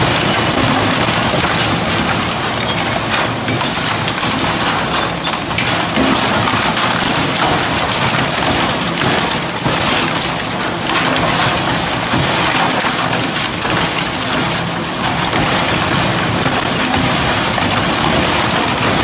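Twin-shaft industrial shredder tearing up a whole motorcycle: a loud, steady crushing of metal and plastic, with frequent sharp cracks and bangs.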